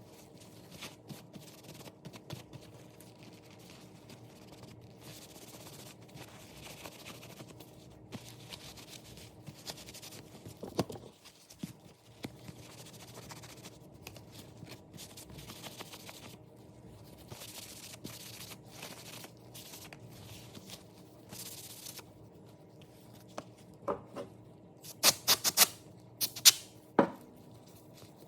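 Faint rubbing and scratching from handling and working leather, with scattered small clicks, then a run of sharper, louder taps with a short ring near the end.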